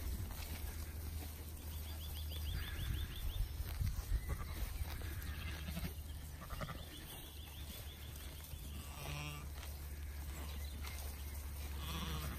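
Sheep bleating in a flock, with one clear wavering bleat about nine seconds in, over a steady low rumble.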